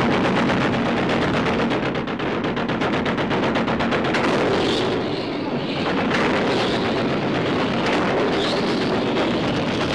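Rapid automatic gunfire from a twin-barrelled deck gun, a film soundtrack effect, at about ten shots a second. After about four seconds the shots blur into a dense, noisy din.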